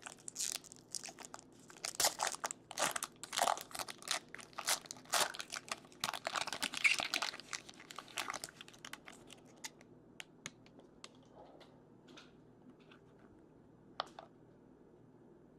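A football trading card pack's wrapper crinkling and tearing as it is opened: a dense run of crackles for about eight seconds, then a few scattered light clicks as the cards are handled.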